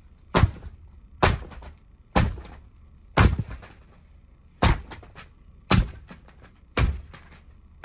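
Seven sharp, heavy thuds, roughly one a second, each ringing briefly in a small room.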